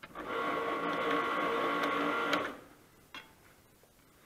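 AFM80ST automatic postage stamp applier running briefly: a steady mechanical hum with several held tones for about two and a half seconds, then stopping with a click. A lighter click follows about a second later.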